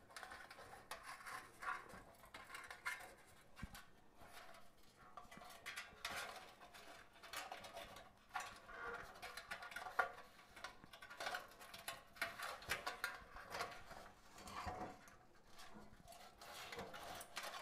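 Faint, irregular rustling and light clinks of a lantern swag being handled and fitted onto the top of a lantern.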